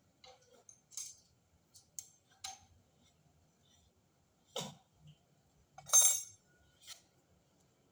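Metal parts and tools being handled at a lathe: a scattering of short clinks and knocks. The loudest is a sharp clink about six seconds in.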